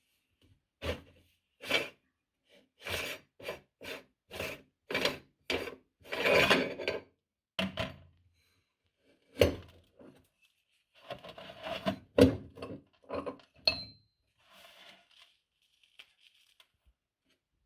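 Crunchy cookies cracking and crunching as a meat grinder crushes them, in irregular bursts with short pauses between. The longest crunching comes about a third of the way in, with more sharp cracks about two thirds of the way in.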